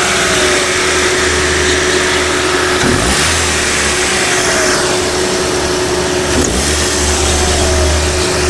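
2012 Chevrolet Sonic's four-cylinder engine being revved and let back down, its speed dropping back twice, with a steady whine running through it. The engine is being checked for a knocking noise that sounded like rod knock.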